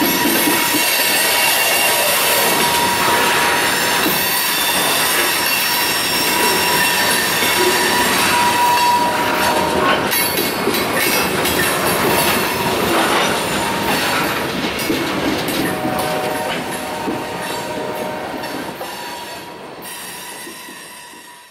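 Freight train's covered hopper cars rolling slowly through a curve, the wheels squealing against the rail with a steady high squeal and some clacking over the rail joints. The sound fades away in the last few seconds as the final car goes by.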